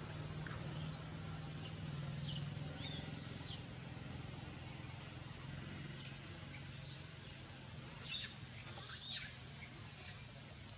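High-pitched animal calls: about a dozen short chirping notes that rise and fall, coming in loose clusters with pauses between, over a faint steady low hum.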